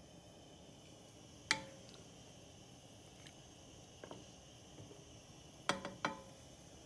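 A spatula knocking against a nonstick frying pan of rice cakes and water while stirring: one sharp knock about a second and a half in, lighter taps around four seconds, and two knocks close together near the end, the pan ringing briefly after each. Under them runs a faint steady hiss.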